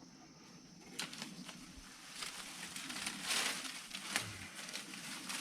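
Cut brush and thorny branches rustling and crackling as they are handled, with scattered twig snaps and a louder rustle about three and a half seconds in.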